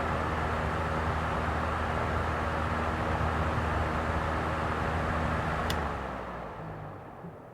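Vintage three-speed electric fan running steadily, a motor hum under the rush of air from the blades. A little before the end a click sounds, and the fan spins down, its hum sinking in pitch and fading out.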